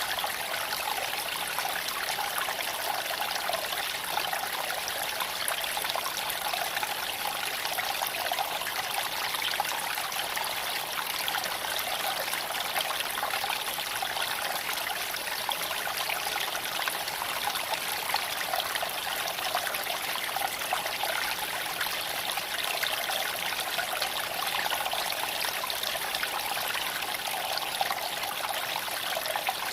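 Small creek flowing and trickling over stones: a steady, even rush of water.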